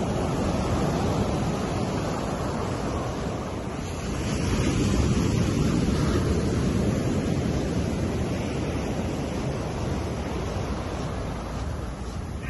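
Ocean surf on a beach: a continuous rush of waves that swells as a wave breaks and washes in about four seconds in, then settles back.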